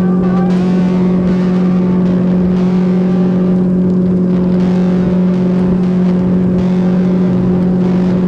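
Outboard motor running at a steady speed, a constant even hum that neither rises nor falls.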